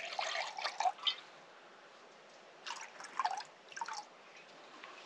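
Water poured from a flask into a small metal camping pot, splashing and glugging in two spells with a short pause between.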